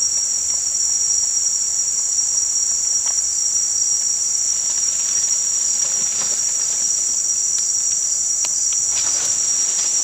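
Steady, high-pitched chorus of forest insects, a continuous even drone.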